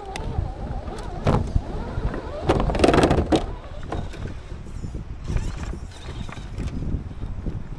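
Loose beach pebbles crunching and clattering in quick irregular clicks, loudest for about a second around three seconds in.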